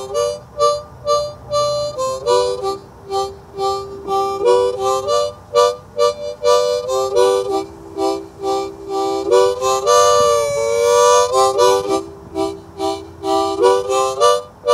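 Harmonica music: a lively tune of short chords, with long notes that bend in pitch about ten seconds in.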